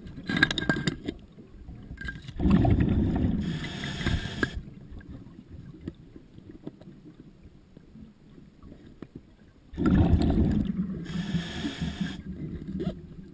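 Scuba diver's regulator exhaust bubbling underwater: two bursts of exhaled bubbles about two seconds each, roughly seven seconds apart, with quieter stretches between them. A few sharp clicks come in the first second.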